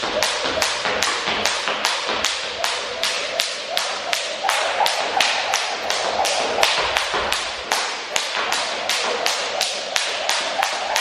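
Cable skipping rope slapping a wooden floor on each turn in a steady rhythm, about two and a half strikes a second.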